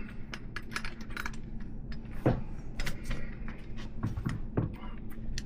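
Small metal parts of a BMX hub and axle (axle, cone nuts, washers) clicking and clinking as they are handled and fitted into the fork by hand, with one heavier knock about two seconds in.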